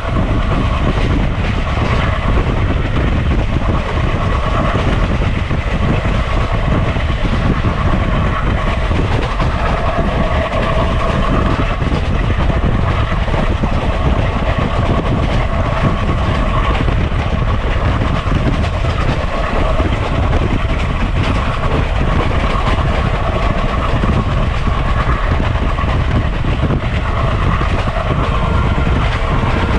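Train running on the track, its wheels clattering steadily over the rails.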